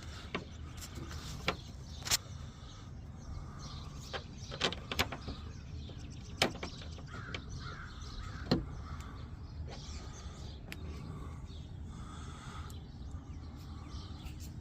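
Scattered light clicks and taps of metal and plastic parts of a door latch assembly being handled and adjusted inside a truck door, the sharpest about 2, 5, 6.5 and 8.5 seconds in, over a low steady hum.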